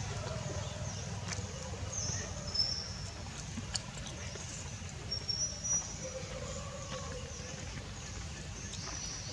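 Outdoor ambience: a steady low rumble with faint, short high-pitched bird chirps and a few soft clicks.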